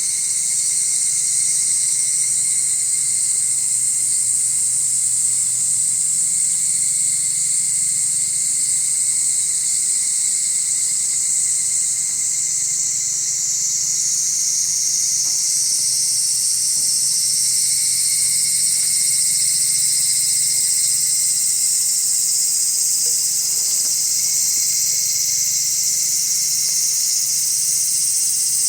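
Summer cicadas in a steady, unbroken high-pitched drone, with a fainter steady insect tone lower beneath it.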